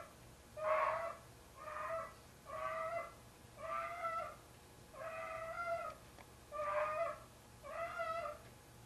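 A heavy, 25-pound domestic cat yowling over and over: about seven drawn-out, even-pitched cries, each under a second long and about one a second. It is the loud yowl he gives while carrying a pair of socks that he treats as his kitten.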